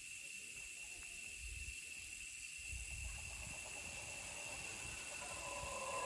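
Rainforest ambience: a steady high-pitched insect drone over an even hiss, with occasional low rumbles. Near the end a wavering animal call begins and grows louder.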